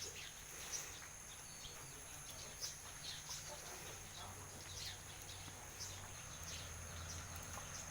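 Scattered short bird chirps, each falling quickly in pitch, repeating every second or so over a steady high-pitched drone.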